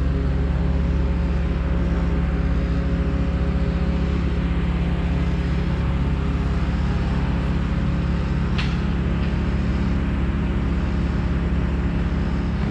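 A steady, low mechanical drone from running machinery, with one brief click about two-thirds of the way through.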